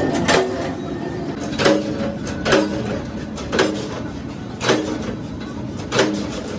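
Hand-lever sheet-metal shear cutting a rusty steel plate. Each stroke of the long lever gives a sharp metallic clank with a short ring, about once a second, six times.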